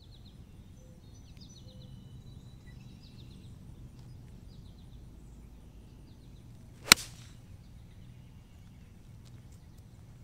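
A golf club striking a golf ball off the tee: one sharp, loud crack about seven seconds in.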